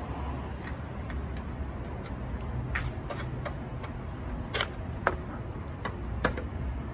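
Irregular sharp clicks and clinks of metal and hard plastic as the battery clamp and terminal are worked loose by gloved hands, the loudest about four and a half and six seconds in, over a steady low rumble.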